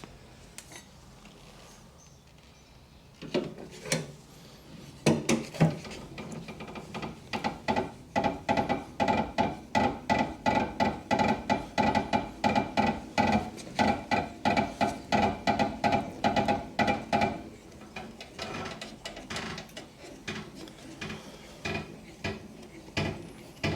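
Car jack being worked to lift the car under its sill jacking point, with a rhythmic clicking of about two to three strokes a second and a squeak on each stroke through the middle, ending just before the wheel is clear of the ground.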